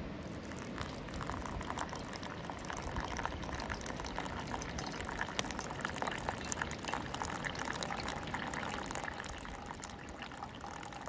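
Hot water poured in a thin stream onto coffee grounds in a paper filter: a steady trickling splash with small crackling ticks as the grounds wet and bubble. It starts about a second in and eases off near the end.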